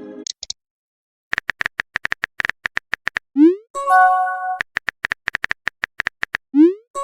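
Phone messenger sound effects: a run of quick keyboard-tap clicks, a short rising pop as a message is sent, and a brief chime, then another run of taps and a second rising pop near the end.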